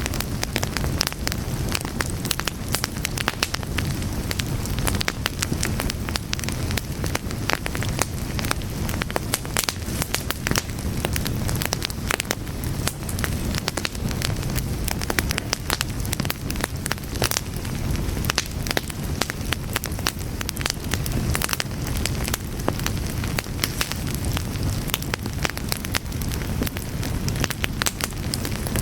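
Fire burning with dense, irregular crackling and pops over a steady low rumble of flames.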